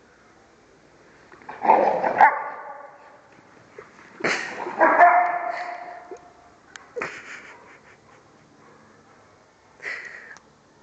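A dog barking during rough play with a pig, four separate barks or bark bursts. The first two are the loudest, and each trails off with an echo in the large hall.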